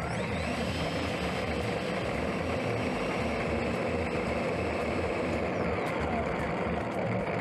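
Electric ducted fan of an E-flite F-15 64mm model jet, heard from a camera mounted on the jet, running steadily with a rushing whine as the jet taxis over pavement; the pitch glides up and down a little as the throttle changes.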